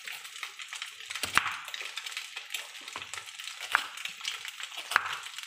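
Chef's knife slicing through a raw carrot on a wooden chopping board: crunchy cuts, each ending in a knock of the blade on the board, four of them sharper than the rest.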